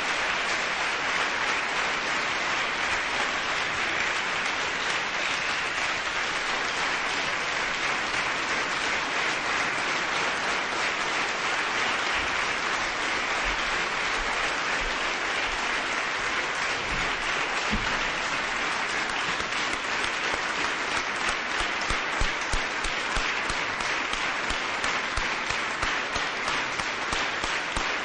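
Audience applauding, a steady mass of clapping. In the last several seconds single sharper claps stand out as the applause thins.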